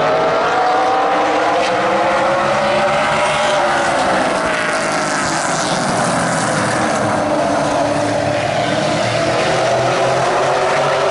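A pack of short-track stock cars racing at full throttle, several engines blending together. Their pitch rises and falls as the cars accelerate, lift and pass.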